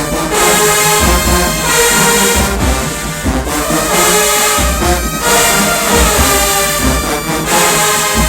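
HBCU marching band brass section playing loudly, trombones and trumpets carrying the tune over a steady beat of bass drum hits.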